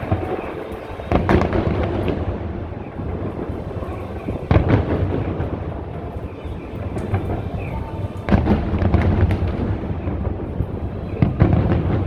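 Aerial firework shells bursting: four deep booms, roughly every three to four seconds, each trailing off in a rolling rumble and crackle.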